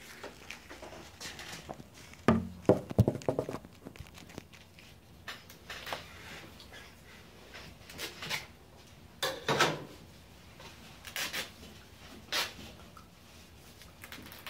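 Rustling and crinkling as a worn laundry bag is handled and pulled open, with scattered light clicks and a cluster of louder knocks about two to three seconds in.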